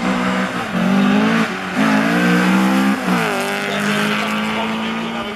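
Cars launching off a drag-strip start line: engines revving hard, the note climbing and dropping back a few times, with tyres squealing as they spin and smoke.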